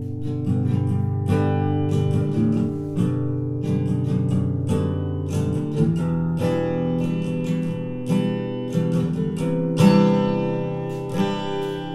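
A recorded acoustic guitar track, plucked and strummed, played back through an Infinity IL-30 two-way tower speaker. A louder strum comes near the end.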